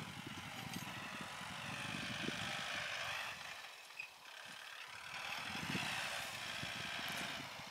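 Kubota L4708 tractor's 47-horsepower diesel engine running steadily under load as it pulls a disc plough through the field, dipping briefly in level about halfway through.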